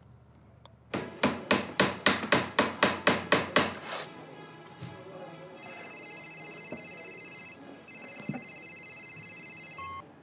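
A quick run of about a dozen sharp knocks, some four a second, then a mobile phone ringing. The ringtone is a steady electronic tone sounding in two long rings with a short break between them, which stops as the call is taken.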